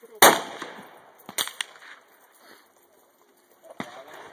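Rifle gunfire: one loud, sharp shot about a quarter second in with a short echo, then fainter shots a little over a second later and again near the end.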